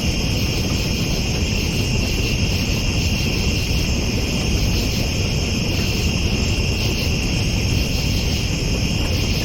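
Steady night-time chorus of crickets or similar insects, a continuous high shrill trill that does not change, over a low steady rumble.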